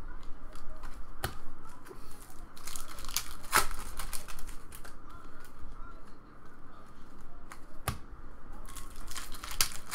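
Foil wrapper of a Bowman Draft baseball card pack crinkling and tearing open, with a few sharp snaps as the cards are handled.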